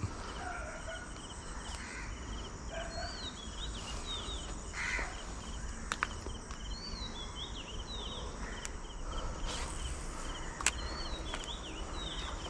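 Small birds chirping in short repeated calls over a steady trilling of insects, with a few sharp clicks, the loudest near the end.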